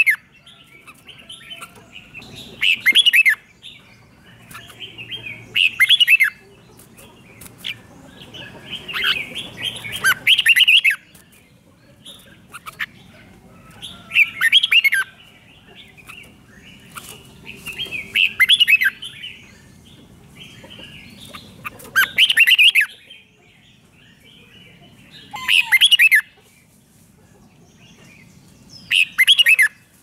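Red-whiskered bulbul singing short song phrases, one every three to four seconds, about eight in all.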